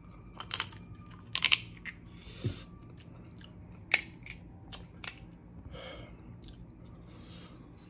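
Close-miked eating of a seafood boil: chewing, with a dozen or so sharp clicks and cracks scattered through, the loudest about one and a half and four seconds in.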